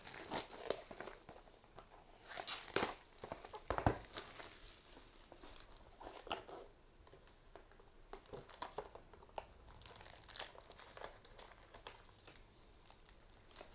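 Plastic wrapping crinkling and tearing in irregular rustles as a trading-card booster box is unwrapped and opened, with the loudest bursts about three seconds in and again around ten seconds in.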